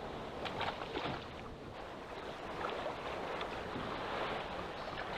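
Choppy water splashing and slapping against a small boat's hull, with wind on the microphone and a few short sharp knocks and splashes.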